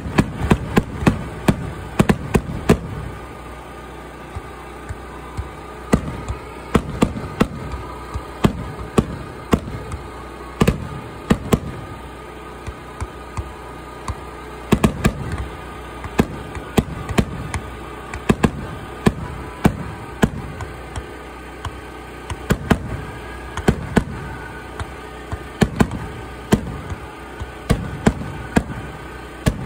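Fireworks display: a long run of sharp bangs from bursting shells, coming in irregular clusters of several a second with short quieter gaps between volleys.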